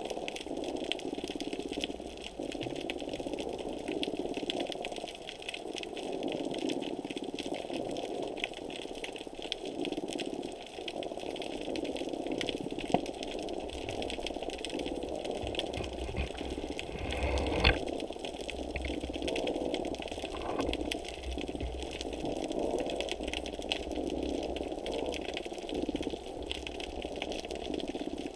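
Underwater ambience heard through a GoPro's waterproof housing: a steady, muffled churning of water movement with a fine crackle of ticks throughout. There is one sharper knock a little past halfway.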